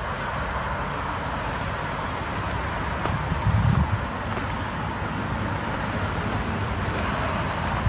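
Steady road traffic noise with gusts of wind buffeting the microphone, and a few short high chirps.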